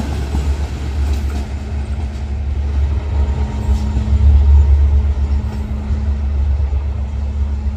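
Diesel-hauled passenger train moving away, with the low, steady drone of its GM diesel locomotive's engine.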